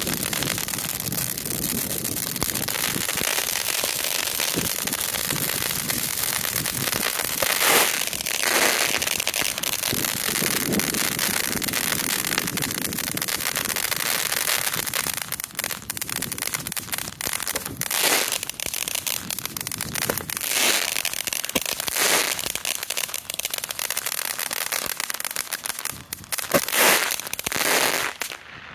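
Consumer firework fountains burning, a steady loud hiss of spraying sparks that turns to sputtering crackle about halfway through. Several sharp bangs stand out, the loudest near eight seconds in and near the end.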